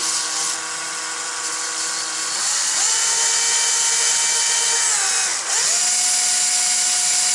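A small drill fitted with a sanding disc runs steadily, its motor whine over the hiss of the abrasive sanding the edge of a wooden board. The motor speeds up about a third of the way in and dips briefly near two thirds before running on.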